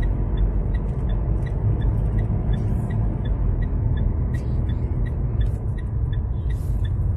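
Steady low rumble of a car driving, heard from inside the cabin, with an even ticking of about three ticks a second that is typical of the turn-signal indicator.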